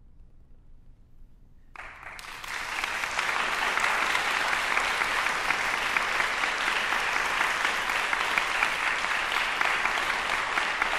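Audience applauding. The applause starts after a brief hush about two seconds in and quickly swells to a steady level.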